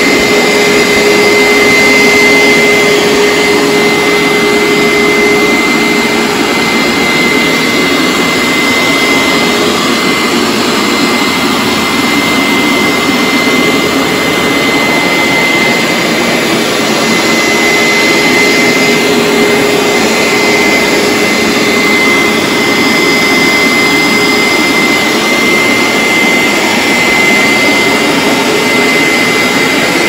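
Hoover SteamVac Dual V carpet cleaner running steadily while extracting a rug, its suction motor giving a loud, even rush with a steady high whine.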